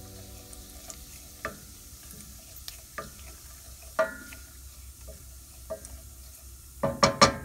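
Carom seeds (ajwain) frying in hot oil in a stainless steel pot, with a faint sizzle, while a wooden spatula stirs and knocks against the pot. The knocks come a few at a time, with a quick cluster of louder ones near the end.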